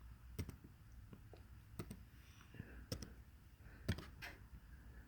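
Faint, scattered clicks from someone working a computer, about six over a few seconds at uneven spacing.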